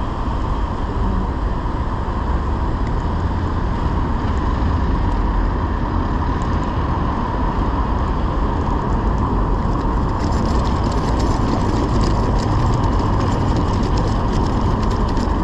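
Steady rumble of wind and road noise from a moving bicycle ridden beside car traffic. From about ten seconds in, a rapid fine rattling as the bike's tyres roll over cobblestones.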